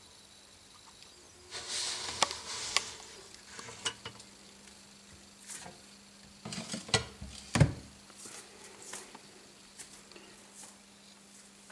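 Irregular clicks, knocks and rustles, loudest about two thirds of the way through, over a faint steady hum.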